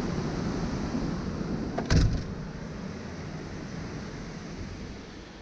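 Steady rushing noise of storm wind, with one loud knock about two seconds in, like a door shutting.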